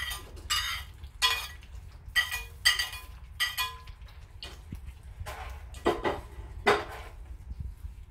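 A serving spoon clattering and scraping against a plate and the rim of an aluminium pot as flaked fish is knocked off into the soup, several quick strokes in the first half. Then the spoon stirs through the thick spinach soup, with two duller knocks against the pot.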